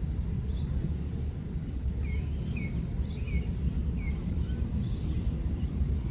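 A songbird gives four short, high chirps in quick succession, about two seconds in, over a steady low background rumble.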